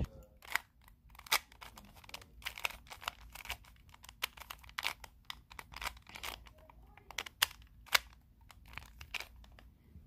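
Rubik's Cube being twisted: a quick, irregular run of plastic clicks and scrapes as its layers turn, with a few sharper snaps standing out.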